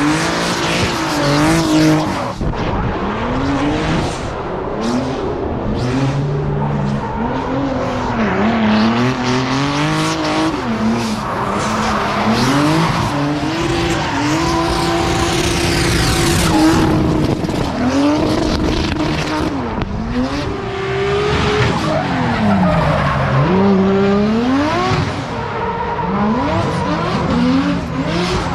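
Drift cars sliding sideways at full throttle: engines revving hard, pitch swinging up and down again and again, over continuous tyre screech.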